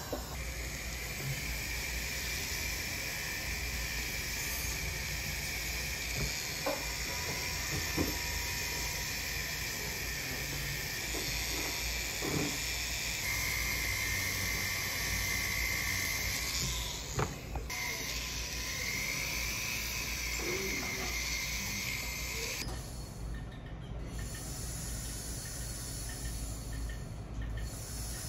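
Foredom flex-shaft rotary tool running with a steady high whine as a polishing wheel works a gold pendant. The whine steps up slightly about halfway through, drops out briefly, spins back up, then stops about 23 seconds in.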